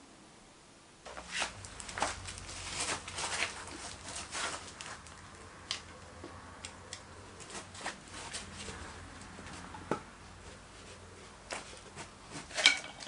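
Rustling and light clicks and knocks of a painted casting pattern being handled and set down on a moulding board. They start about a second in and come irregularly, with the sharpest cluster of clicks near the end, over a faint low hum.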